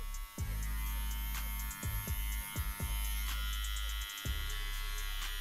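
Andis SlimLine 2 cordless hair trimmer buzzing steadily as it edges a hairline, with a brief dip in its hum about four seconds in.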